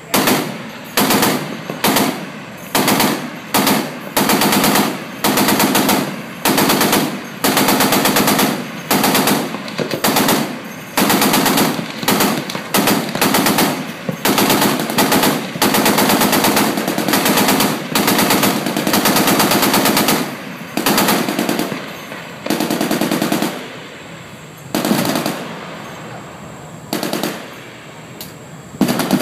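Shipboard machine guns on a guided-missile cruiser firing many short bursts of rapid automatic fire, one after another, about a second apart.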